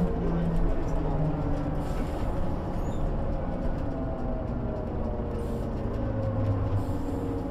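1998 MAN NG 312 articulated bus heard on board while under way, its engine and gearbox running. The engine note drops over the first second or so, and a lower note comes in near the end.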